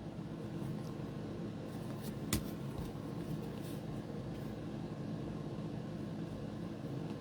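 Steady low hum of room background noise, with a single faint click about two and a half seconds in.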